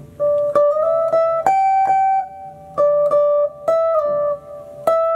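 Stratocaster-style electric guitar playing a short melodic phrase of single picked notes on the top two strings, with small slides up between some notes. The last note, about five seconds in, rings on.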